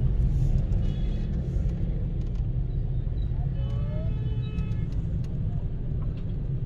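Steady low rumble of a car's cabin creeping through dense city traffic. About halfway through comes a brief pitched tone from the traffic outside.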